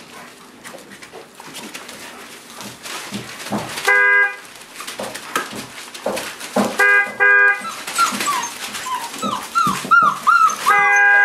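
Five-week-old Boerboel puppies playing on newspaper: rustling paper and scrabbling paws, then a quick run of short high yips and whimpers near the end. Brief steady ringing tones cut in three times, and another comes in just before the end and keeps going.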